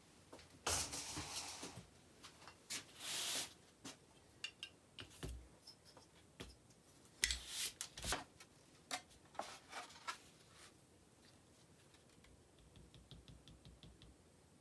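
Hand work at a workbench: two short scraping or rubbing strokes, then scattered light clicks and brief scrapes, ending in a quick run of small ticks.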